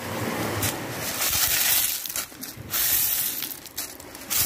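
Loose beach rubble of shells, coral bits and sea glass crunching and clinking as it is stirred and stepped on, in a string of scraping rattles that swell about a second in and again near the end.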